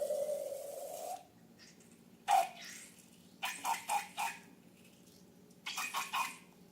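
A drawn-out squeal that stops about a second in, then slime being squeezed and squished: short wet squelches, one and then clusters of three or four.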